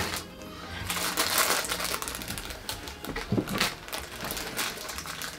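Crinkling of plastic candy packets and scattered small clicks of candy pieces on the tabletop as gingerbread-house decorations are handled.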